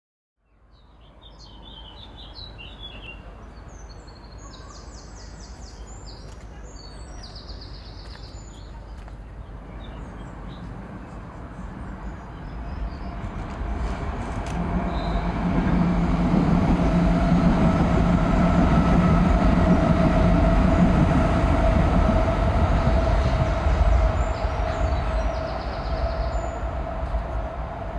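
Outdoor ambience: birds chirp in short bursts at first, then a low mechanical rumble with a steady whine builds over several seconds and stays loud, easing a little near the end, like a large vehicle passing close by.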